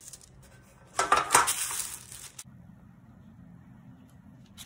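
Metal baking trays clattering and scraping on the counter for about a second and a half, starting about a second in.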